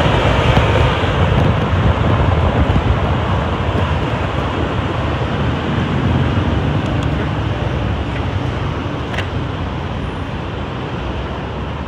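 Honda ADV150 scooter ridden slowly through street traffic: an even rush of engine and road noise with the traffic around it, easing off and growing quieter toward the end as the scooter slows.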